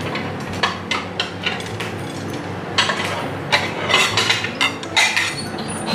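Ceramic plates and cutlery clinking and knocking as they are taken out and set down, in scattered separate clinks that come more often in the second half.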